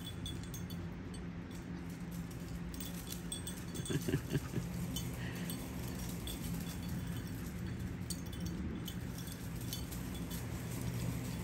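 Light, scattered metallic clinks and ticks over a steady low hum, with a short louder burst about four seconds in.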